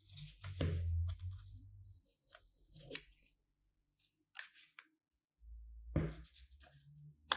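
Small cut paper squares being handled and shuffled by hand on a wooden table: crinkling rustles in several short bursts, the loudest about a second in, with more near three seconds and around six.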